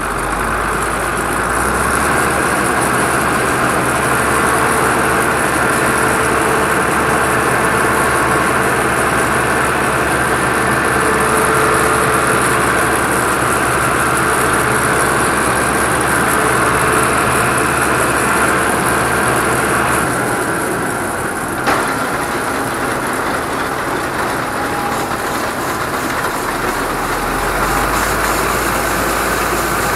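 Combine harvester running steadily at working speed, engine and machinery loud and even. A single sharp click comes about two-thirds of the way through, and near the end the unloading auger starts pouring grain into the truck below.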